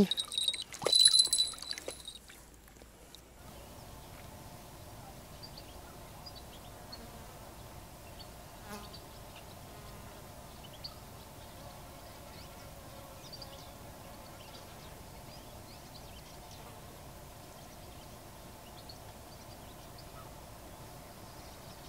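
Steady buzz of flying insects over still water, with faint scattered high chirps. It follows a short loud burst of noise in the first two seconds.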